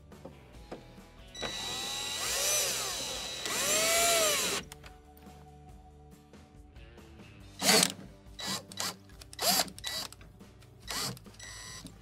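Milwaukee cordless drill/driver with a quarter-inch hex nut driver running screws into a plastic appliance panel. The motor whine rises and falls in two runs, then comes several short blips as the screws are snugged down.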